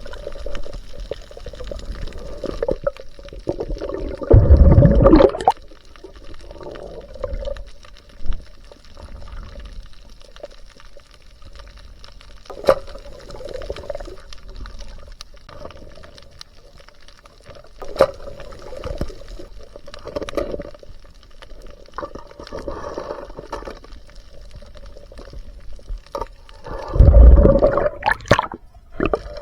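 Water sloshing and gurgling around a diver, with scattered small knocks and two louder rushes of water, one about four seconds in and one near the end.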